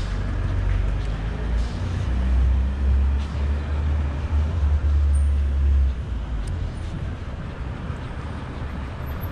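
Street traffic noise: a low rumble of vehicles that eases off about six seconds in.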